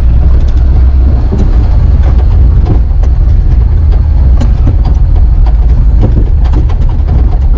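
Vehicle engine running with a loud, steady low rumble while driving, with scattered short knocks over it.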